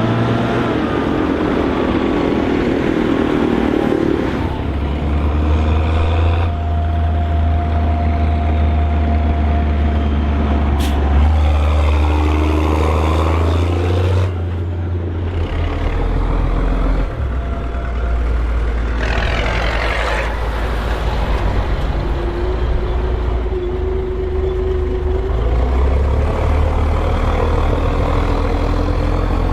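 Case IH 1455 XL tractor's diesel engine running hard, a deep steady drone that changes pitch abruptly several times and briefly revs up and down near the middle.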